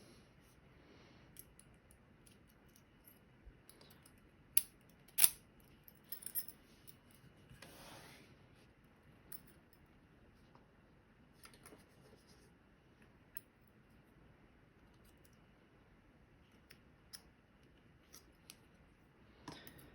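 Scattered small metallic clicks and clinks from handling a Medeco lock cylinder and tools as it is taken apart, with two sharp clicks about four and a half and five seconds in and a short scrape near eight seconds.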